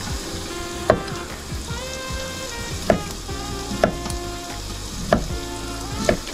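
Chef's knife chopping through kielbasa onto a wooden cutting board: about five sharp knocks at uneven intervals, over a steady sizzle from an electric skillet and soft background music.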